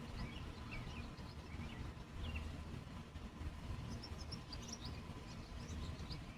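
Small songbirds chirping in short, high notes, scattered at first and more frequent in the second half, over a steady low rumble.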